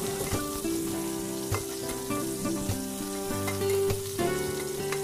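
Garlic and onion sizzling in hot oil in a wok while a spatula stirs them, with scrapes and taps of the spatula against the pan. Background music with held notes plays underneath.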